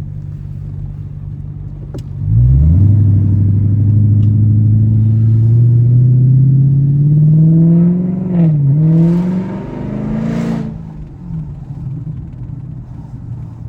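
A car engine jumps from idle into a hard rev about two seconds in and pulls for several seconds, its pitch slowly climbing. The pitch dips once briefly, then the engine falls back to a low rumble near the end.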